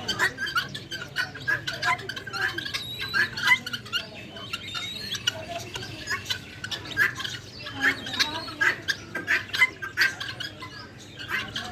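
A flock of guinea fowl calling: many short, harsh squawks come one after another and overlap without a break.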